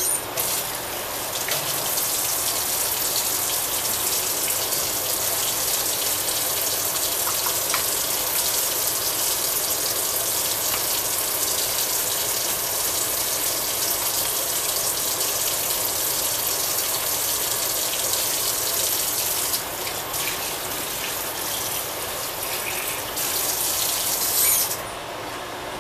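Kitchen tap running hard into a sink, the water most likely rinsing the bell peppers. It is turned on just after the start and off shortly before the end, with brief dips in the flow about twenty seconds in.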